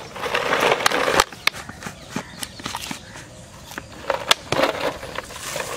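A plastic bottle and dry fishing bait being handled. A rustling rush runs for about the first second and stops abruptly, followed by scattered sharp clicks and taps of plastic.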